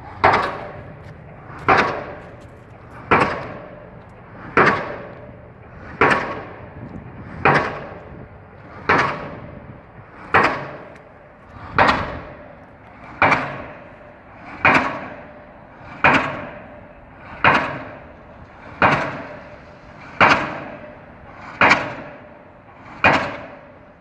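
Pile driver's impact hammer striking a pile at a steady pace, about one blow every one and a half seconds. Each blow is a sharp bang with a short ring after it.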